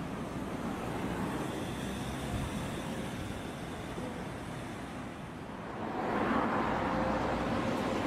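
Road traffic noise: a steady rush of passing vehicles, growing louder about six seconds in.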